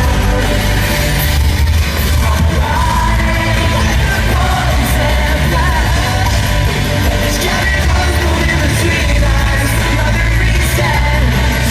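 Pop-rock band playing live at concert volume, with sung vocals and loud yelling voices over a heavy, steady bass.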